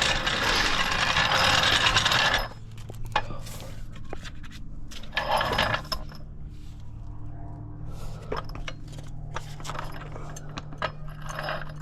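A metal floor jack and jack stand being dragged into place and positioned, with a long scrape over the first couple of seconds, then metallic clinks, knocks and shorter scrapes.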